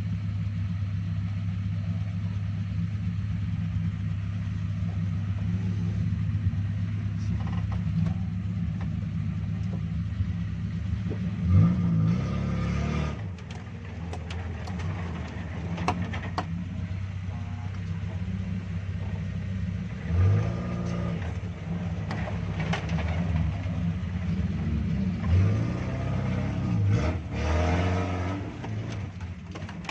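Suzuki Jimny 4x4's engine running steadily at low revs while crawling over rocks, then revving up briefly several times in the second half as it climbs. A few sharp knocks come in the middle.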